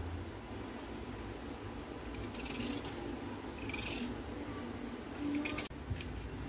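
A carrot rubbed on a small metal hand grater: three short scraping strokes over a faint steady hum.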